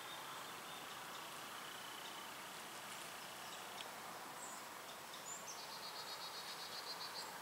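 Quiet woodland ambience: a faint steady hiss with a couple of short high chirps about midway. Near the end, a rapid high trill of about eight notes a second.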